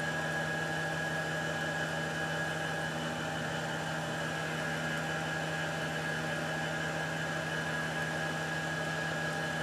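Tormach 8L CNC lathe spindle running at about 2500 RPM as a left-hand facing tool takes light passes down the outside diameter of a brass bar: a steady hum with a high, even whine over it.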